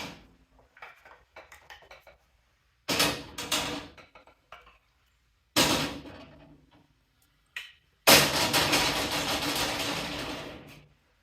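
Hammers knocking and clanking against stainless steel sheet-metal holders as they are hung on the toolbox side: separate sharp knocks a few seconds apart, then a longer clatter lasting nearly three seconds that dies away.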